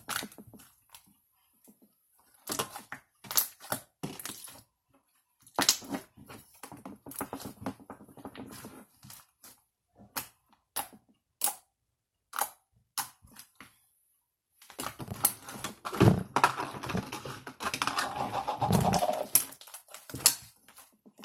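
Jiggly slime being squeezed and stretched by hand, making irregular crackling clicks and pops. The squishing gets denser and louder in the last few seconds.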